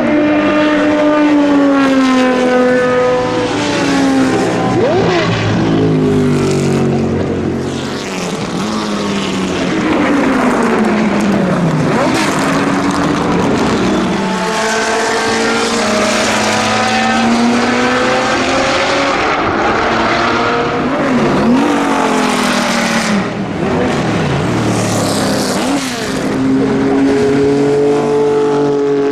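Porsche 917 flat-twelve race engines at racing speed, revs climbing through the gears and falling away on lifts and downshifts. Several times a car goes past with a sharp drop in pitch.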